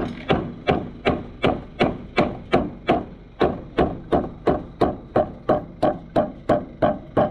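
Hammer blows struck in a steady rhythm, about three a second, each with a short ring after it, with a brief pause a little after three seconds in.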